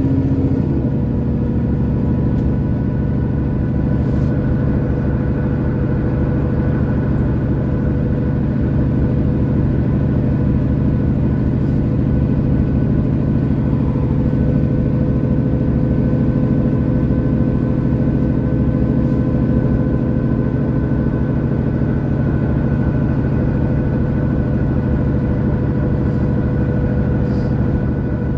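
Inside a Mercedes-Benz O530 Citaro Facelift city bus under way: the engine and drivetrain running steadily with road rumble and a constant hum. The low sound shifts just under a second in, then holds steady.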